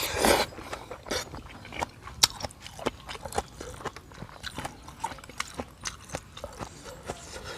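Close-up eating sounds of a person eating noodle soup: a slurp at the start, then irregular wet clicks and smacks of chewing.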